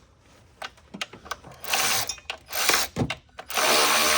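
Power tool running on the intake plenum bolts of a 3.6 V6: its steady run stops, a few short bursts and clicks follow, and it runs steadily again about three and a half seconds in.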